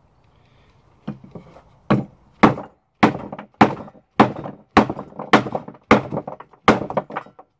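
Batoning: a wooden baton strikes the spine of a fixed-blade bushcraft knife, driving it down through a piece of wood. After a couple of faint knocks it settles into about ten sharp wooden knocks, roughly two a second.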